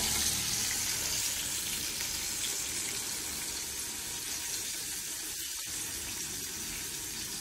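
Boneless crumb-coated chicken deep-frying in a pan of hot oil: a steady sizzle that eases slightly over the seconds.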